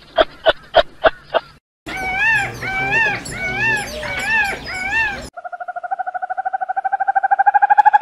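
A peacock calling, a series of about five loud arched cries, each rising and falling in pitch. Just before it, a short run of sharp pulsed calls at about four a second. After it, a steady pulsing tone that slowly rises in pitch takes over.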